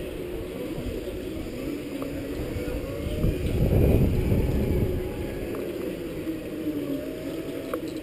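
Segway personal transporter's drive motors and gearboxes whining while riding, the pitch wavering with speed, over a low rolling rumble. About three and a half seconds in a louder low rumble swells and dies away by five seconds.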